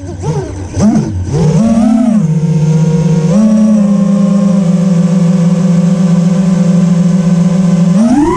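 FPV quadcopter's brushless motors and propellers whining, heard from the camera on the quad: the pitch swoops up and down with the throttle for the first couple of seconds, then holds a steady tone, steps up slightly after about three seconds and climbs sharply near the end as the throttle is punched.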